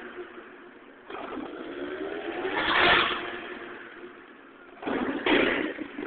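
Monster truck engine revving hard in surges: the pitch climbs from about a second in to a loud peak near three seconds and falls away, then a second sharp burst of throttle comes near five seconds.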